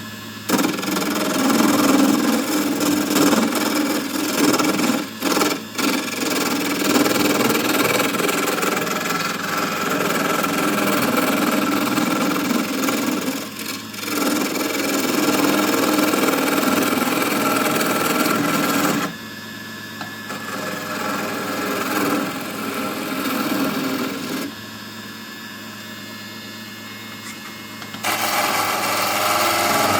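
Small wood lathe running while a gouge rough-turns an octagonal wooden blank down to a cylinder, the tool scraping and cutting the spinning wood. The cutting noise drops out briefly a few times and is quieter for several seconds in the second half, then picks up again near the end.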